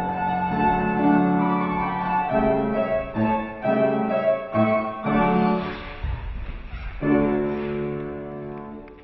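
Piano playing accompaniment for a ballet class combination, a run of chords that ends on a last chord struck about seven seconds in and left to die away.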